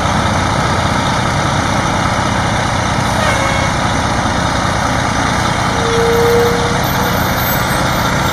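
Diesel engine of a fire department aerial ladder truck running steadily as the truck passes at a crawl, with a short squeal about six seconds in.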